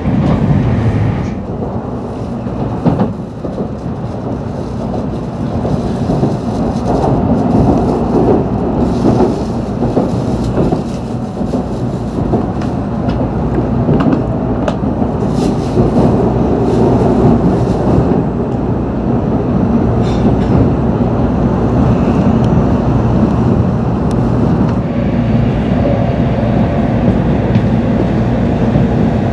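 Running noise of an N700 series Shinkansen heard from inside the passenger car: a steady rumble of wheels on track, with a few sharp clicks about halfway through.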